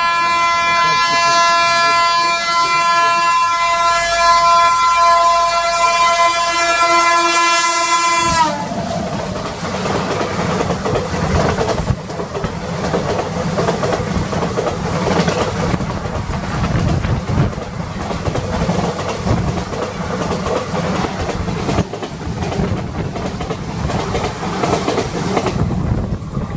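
WAP7 electric locomotive horn sounding one long continuous blast that falls in pitch as it ends, about eight seconds in. Then the express's coaches pass close by at speed, a steady rumble with wheels clattering over the rail joints.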